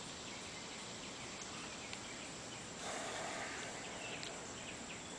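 Steady outdoor background noise with a few faint, short chirps, and a brief rise in the noise about three seconds in.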